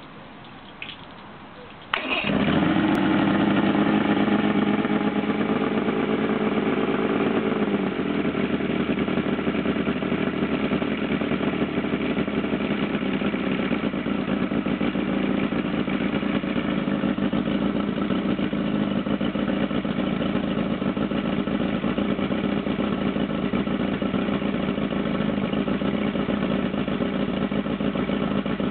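1979 Mercury 500 50 hp two-stroke inline-four outboard engine starting abruptly about two seconds in. It runs at a fast idle for several seconds, then settles to a lower, steady idle.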